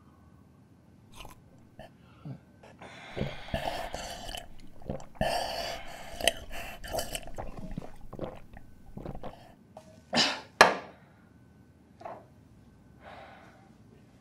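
People gulping and slurping hot coffee from mugs for several seconds, then two short, loud coughing gasps about half a second apart, followed by a few quieter breaths.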